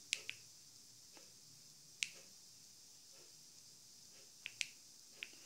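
TV remote control buttons clicking: about six short, sharp clicks, spread out, a pair near the start, one about two seconds in and three near the end, with little else in between.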